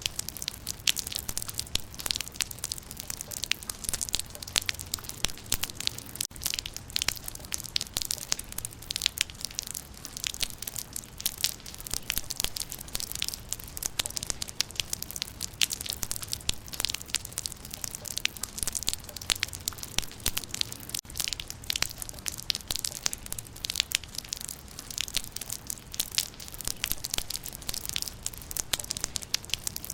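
Rain falling on leaves: a dense, even patter of many small, crisp drop hits.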